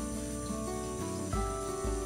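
Background music: soft instrumental held notes, moving to a new chord about a second and a half in.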